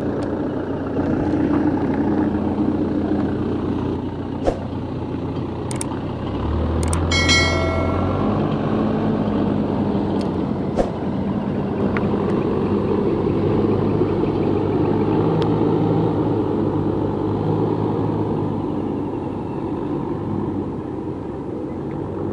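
A small engine running steadily, its pitch shifting a little, with a few sharp clicks.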